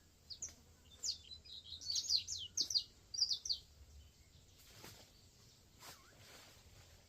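A small bird singing a quick run of short, high chirping notes that stops about three and a half seconds in, followed by a couple of faint clicks.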